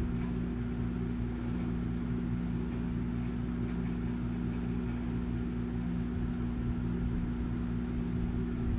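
Steady low hum.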